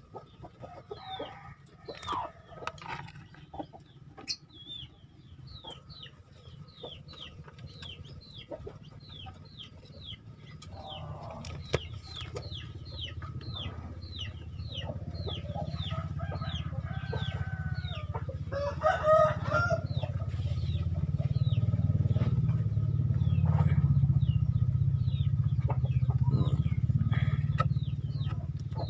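Chickens calling: high, falling peeps repeated about twice a second, with a rooster crowing about two-thirds of the way through. A low rumble builds over the second half and becomes the loudest sound.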